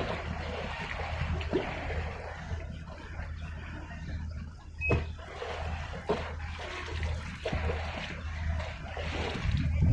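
Ocean waves washing in, a steady rush of water with a low rumble beneath it and a sharp click about five seconds in.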